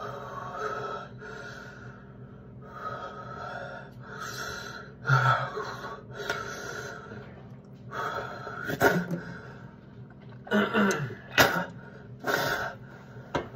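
A man breathing heavily and raggedly, in breaths about a second each, then coughing several times in short, harsh bursts in the second half. It is the distress of the burning heat after eating the Paqui One Chip Challenge chip.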